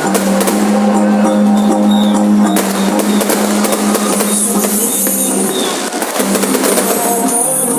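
Music with percussion and a held low note.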